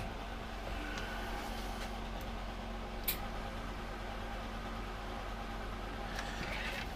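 Steady low mains hum from a switched-on transformer MIG welder, with no arc struck. A sharp click right at the start and another about three seconds in.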